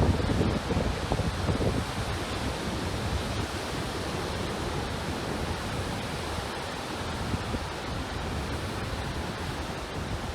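Steady rush of water with wind buffeting the microphone, gustiest in the first two seconds.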